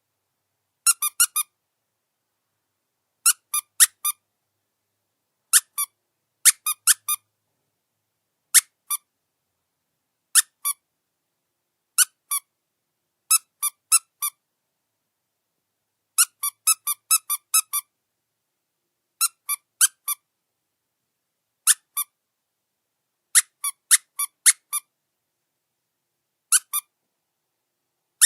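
Squeaky rubber dog chew toy being squeezed: short, high squeaks in quick groups of two to four, each group separated by a second or two of silence. In many pairs a louder squeak is followed by a softer one, like a squeeze and its release.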